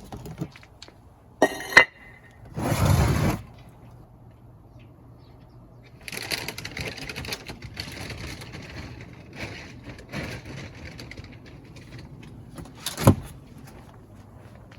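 Crunching, rustling footsteps and handling noise with scattered clicks. There are two sharp clicks and a louder rush of noise in the first few seconds, and another sharp click near the end.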